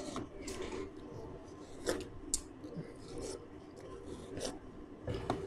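Several people biting into and chewing juicy watermelon slices off the rind: scattered short, faint crisp bites and wet mouth sounds.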